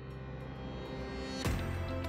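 Background music building in loudness, with a sharp hit about one and a half seconds in, after which a strong bass line comes in.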